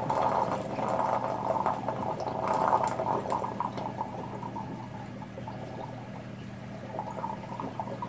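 Aquarium overflow drain gurgling and rushing as water runs down the standpipes, the full siphon still equalizing and the level in the overflow box slowly dropping. Louder and more turbulent for the first few seconds, then settling to a quieter, steadier flow, with a steady low hum underneath.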